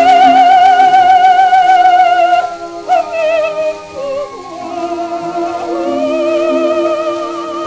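A mezzo-soprano sings operatic long held notes with a wide vibrato over a sustained accompaniment, broken about two and a half seconds in by a few shorter notes. The sound comes from a 1907 acoustic-era gramophone disc, with faint surface hiss.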